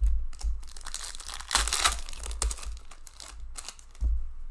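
Foil wrapper of a hockey card pack being torn open and crinkled by hand, a string of irregular rustles that are loudest about halfway through, with a dull thump near the end.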